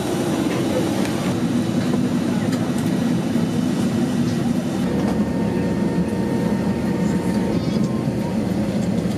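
Airliner cabin at the gate: a steady hum from the ventilation and aircraft systems, with passengers talking in the background.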